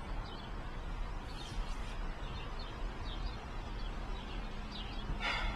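Outdoor ambience: small birds chirping now and then over a steady low rumble, with a brief burst of noise near the end.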